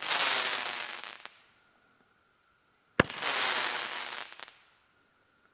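Crackling Roman candle firing two shots about three seconds apart, each a sharp pop followed by about a second and a half of dense crackling that fades out.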